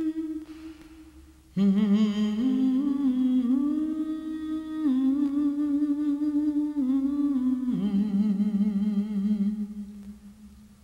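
A single voice humming a slow, wordless melody in long held notes with vibrato, stepping between pitches. It fades out just after the start, comes back about a second and a half in, and fades away near the end.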